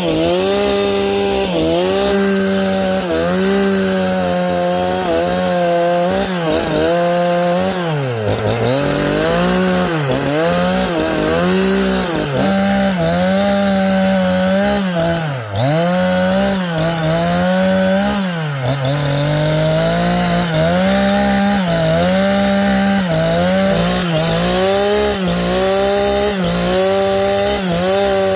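Two-stroke chainsaw running at full throttle, sawing through a large log. The engine pitch sags about once a second as the chain bites, dropping deeper a few times near the middle.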